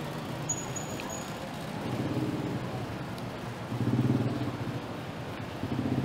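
City street traffic: motor vehicle engines running and passing, with a low engine note swelling three times, about two, four and six seconds in.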